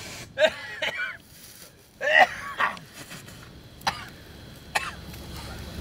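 A man's short grunts and groans, four in all, the loudest about two seconds in, followed by two sharp clicks.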